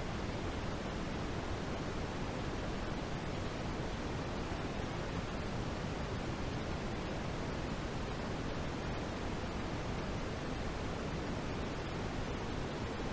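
Steady sleep-noise track: an even, unchanging hiss with no rhythm or events, heavier in the low end than the top, like pink noise.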